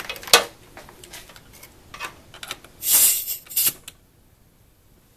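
Compressed-air hose quick-connect coupler being pushed onto a die grinder's inlet: handling clicks, a short hiss of escaping air about three seconds in, then a couple of sharp clicks as it seats.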